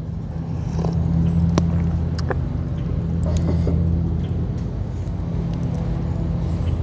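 Steady low engine hum, like a motor vehicle idling, with a few faint clicks over it.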